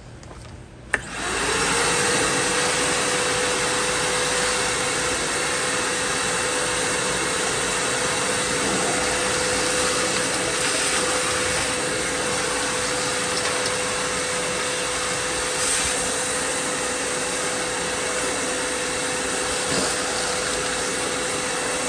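HART 8-gallon, 6 peak HP stainless steel wet/dry shop vacuum switched on with a click about a second in. It spins up quickly to a steady, loud motor whine with a constant hum, sucking up sawdust.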